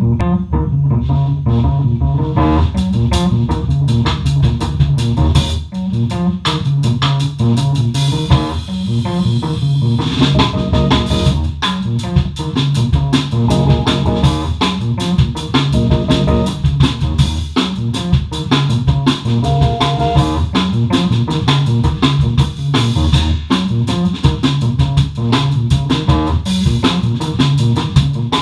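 Improvised funk groove played live on a drum kit and a keyboard, with a heavy bass line under steady drum hits.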